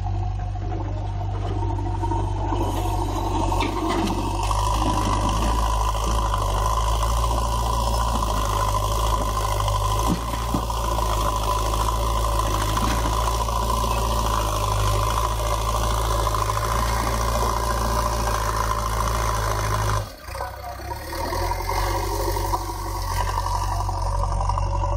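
JCB 3DX backhoe loader's diesel engine running under load as its front bucket digs into a pile of soil and rock and lifts, a steady whine above the engine's low drone. The sound drops out sharply about 20 seconds in, then comes back.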